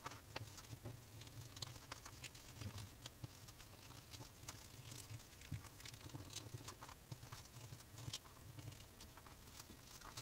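Faint, scattered small clicks and taps as hands handle brass rivets and fit them through a leather tray, over a faint low hum.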